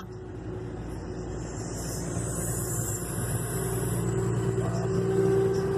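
Road and engine noise heard inside a moving car at highway speed, growing gradually louder, with a steady hum coming up near the end.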